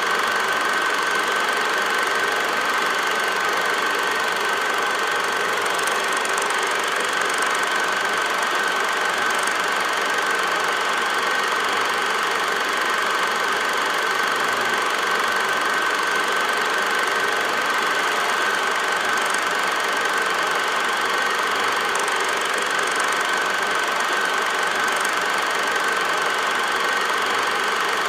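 Steady mechanical whirring and clatter of an 8mm film projector running, with an even hiss and one constant high-pitched tone that never changes.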